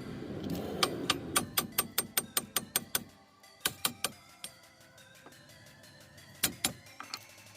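Hand ratchet clicking quickly, about five clicks a second for two seconds, then a few single clicks as a bolt is worked, over background music.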